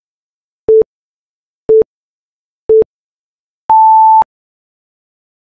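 Countdown timer beeps: three short, lower beeps a second apart, then one longer, higher beep as the timer hits zero, signalling that time is up.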